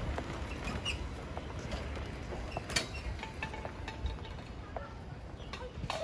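Outdoor city ambience: a steady low rumble with scattered small clicks and a few brief high chirps, one click a little sharper near the middle.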